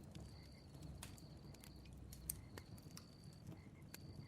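Faint crackling campfire: scattered sharp pops and snaps over a low rumble of the flames, with a faint high chirping tone repeating about once a second.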